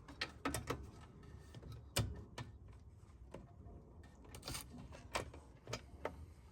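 Hand tools clinking and knocking on metal at the rear brake caliper while its 13mm mounting bolts are being worked off: a dozen separate sharp clicks at irregular intervals, the loudest about two seconds in.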